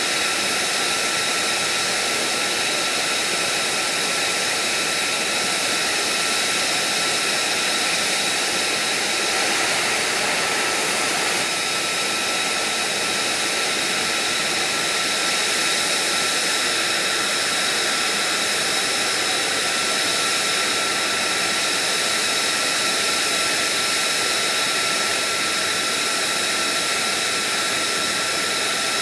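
Lockheed Martin F-35's Pratt & Whitney F135 jet engine running steadily while the aircraft stands parked: an even rushing hiss with a steady high-pitched whine on top.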